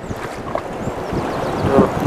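Wind buffeting the microphone over sea water lapping around a small drifting boat.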